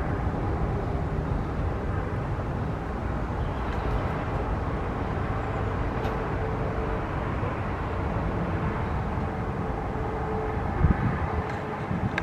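Steady low jet rumble of a Boeing 777 on final approach with its landing gear down, with a faint steady whine in the middle. A short thump comes near the end.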